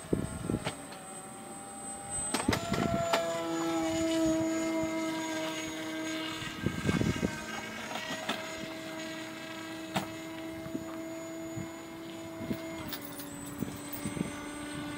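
Radio-controlled Icon A5 model seaplane's motor and propeller droning at a steady pitch as it flies overhead. The pitch steps up about two and a half seconds in as the throttle is opened and drops slightly near the end.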